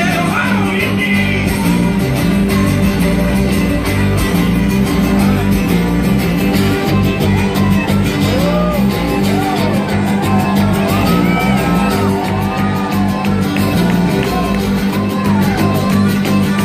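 Live band playing with steady sustained bass notes, and voices shouting and whooping over the music in the second half.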